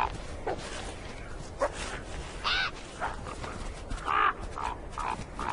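A series of about nine short animal calls, sharp and separate, the loudest about two and a half and four seconds in, from the wolf pack and ravens at a carcass.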